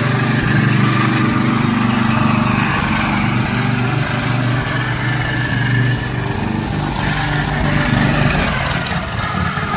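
Engine running steadily at a constant speed, with a low even hum.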